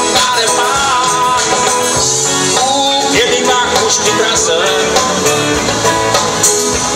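Rock band playing live through a large outdoor PA system, heard from among the audience.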